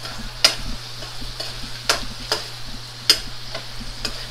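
Shrimp sizzling in a steel wok while a metal ladle stirs them, clinking sharply against the pan about every second or so, three knocks louder than the rest.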